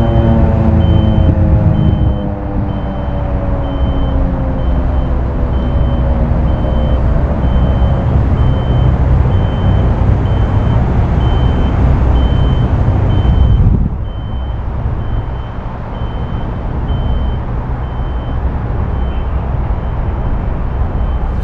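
Federal Signal 2001 siren winding down, its pitch sliding down and fading out over the first several seconds, under a heavy low rumble that drops suddenly about 14 seconds in. A high beep repeats about once every three-quarters of a second.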